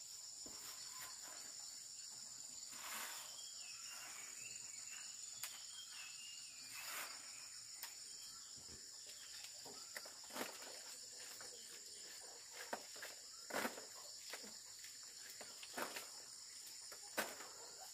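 Steady, high-pitched chirring of insects, with a few light knocks and rustles scattered through.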